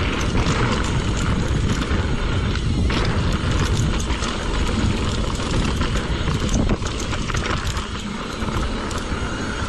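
Mountain bike ridden down a rough dirt trail: wind buffeting the microphone, tyres rolling over dirt, and the bike rattling and knocking over bumps.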